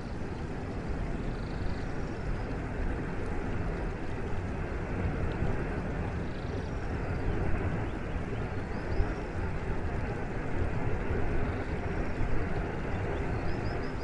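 A tall waterfall pouring into its plunge pool, a steady rushing noise heaviest in the low end. Faint high chirps come a few times.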